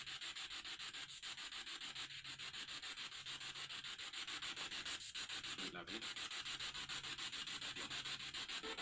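Faint steady hiss that pulses quickly and evenly, many times a second, over a faint low hum.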